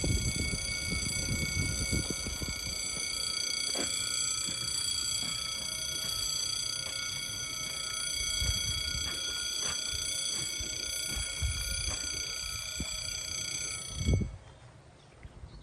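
A continuous high-pitched electronic warning tone, steady and unchanging, over low rumbling. It cuts off abruptly about fourteen seconds in.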